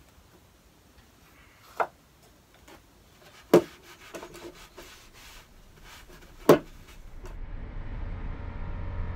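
Rag rubbing walnut stain onto a wooden box, with three sharp knocks spread through it. Near the end, background music fades in.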